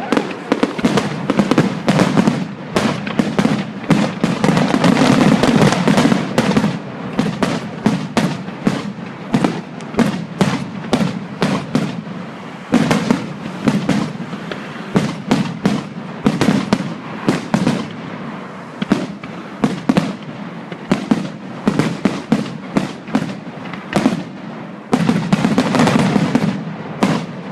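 Fireworks going off in rapid succession: a dense, continuous crackle of sharp bangs that thickens into heavier barrages about a third of the way in and again near the end.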